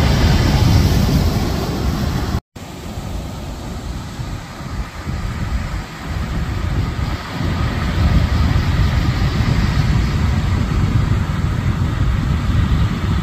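Wind buffeting the microphone over the wash of breaking surf, a loud rumbling rush that rises and falls. It drops out completely for an instant about two and a half seconds in, then carries on lower and rumblier.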